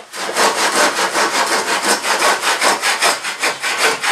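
Handsaw cutting through wood with quick, even back-and-forth strokes, about five a second.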